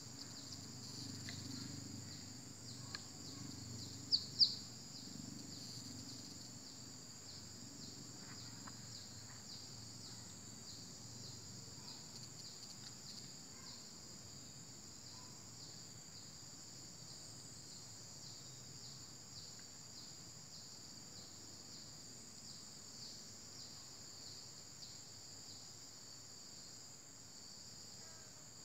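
A steady chorus of insects shrilling without pause, high-pitched in two bands, with two short sharp chirps about four seconds in that are the loudest sounds.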